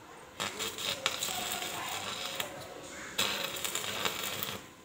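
Stick (arc) welding: the electrode's arc crackling and sizzling, struck about half a second in, breaking off briefly after about three seconds and struck again, then cutting off near the end.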